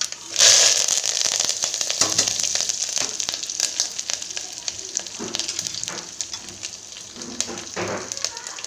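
Crushed garlic, curry leaves and dried red chillies dropped into hot sesame oil in a tempering: a sudden loud sizzle about half a second in, full of spitting crackles, that slowly dies down to a steadier frying hiss.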